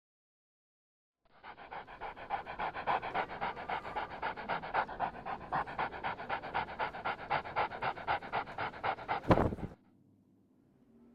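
Dog panting quickly and evenly, about five pants a second. It ends with a sharp click and cuts off abruptly.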